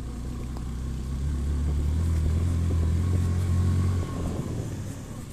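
Motorcycle engine running under way, heard from on board; its low drone builds, then drops away suddenly about four seconds in as the bike eases off to stop.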